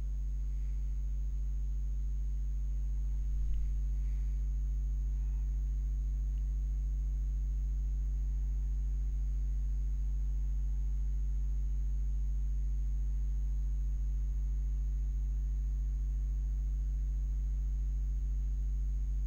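A steady low hum with a faint high whine above it, unchanging throughout.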